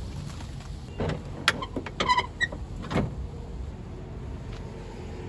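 A few sharp knocks and clicks, about one to three seconds in, as the rear hatch and a drawer of an SUV camper build are handled, over a steady low background rumble.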